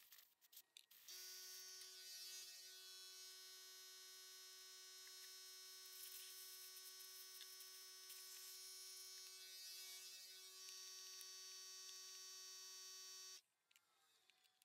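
Faint, steady electric whine of a small motor, one unchanging pitch, starting abruptly about a second in and cutting off abruptly near the end.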